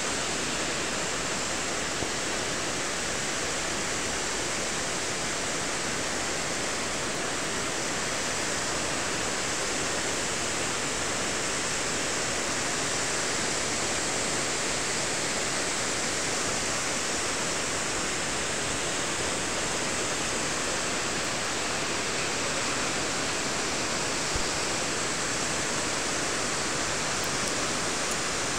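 Shōmyō Falls, a large waterfall, roaring steadily as its water plunges and crashes, a dense even rush with no breaks.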